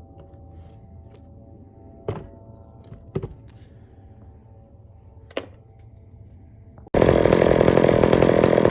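A few light knocks, then a chainsaw running at high revs, loud, starting suddenly near the end and cutting off abruptly.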